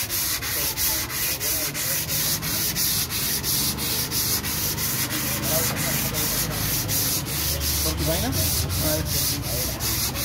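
Car body filler being dry-sanded by hand with sandpaper on a small pad on a car's rear quarter panel: quick, even back-and-forth scratching strokes.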